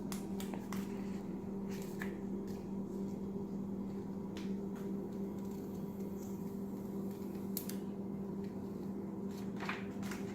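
A steady low electrical hum, with a few soft clicks and rustles scattered through it.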